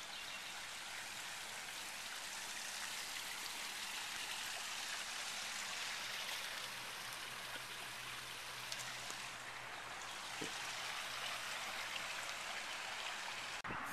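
Steady outdoor background hiss, even and unbroken, with a faint low hum beneath it, as picked up by a small camcorder's built-in microphone.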